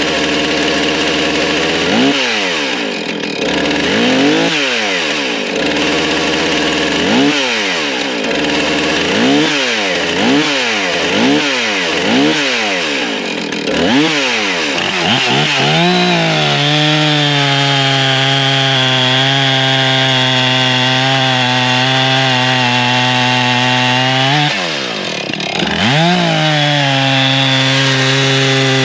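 Husqvarna 460 Rancher 60 cc two-stroke chainsaw revved in a string of quick throttle blips, then held at a steady full throttle through a cut into a log. Near the end the revs drop briefly and climb back.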